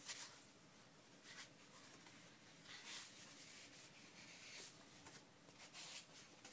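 Faint rustling and sliding of paper sheets being handled and sorted, several short soft scrapes.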